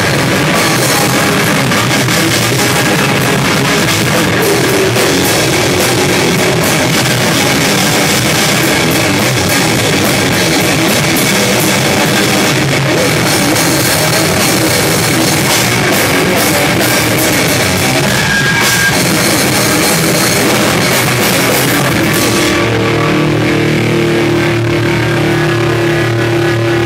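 Live rock band playing loud in a small room: distorted electric guitar over a drum kit with cymbals. About 22 seconds in the drums stop, leaving held guitar notes ringing.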